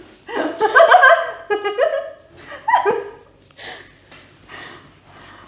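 Giggling laughter, loudest and most pitched in the first three seconds with a quick run of pulsed laughs in the middle, then trailing off into softer, breathy laughs.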